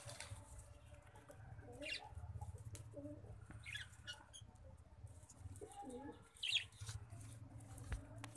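Fantail pigeons cooing faintly, a few low coos about two, three and six seconds in, with brief wing flaps.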